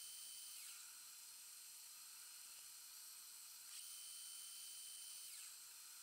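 Faint, high-pitched whine of a metal lathe in footage sped up ten times. The whine glides down and stops as the spindle stops about a second in, rises back as it restarts about four seconds in, and glides down and stops again near the end.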